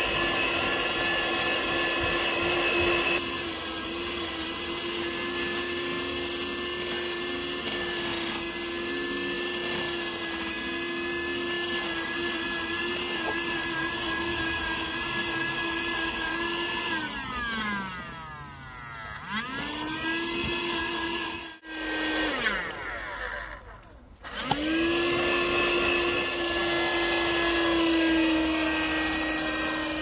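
Windek RCP-D23A 12 V handheld car vacuum cleaner running with a steady motor whine, with extra suction hiss for the first three seconds. About 17 seconds in it is switched off and its pitch falls as the motor spins down, then it starts again and whines back up. A few seconds later it spins down and restarts once more.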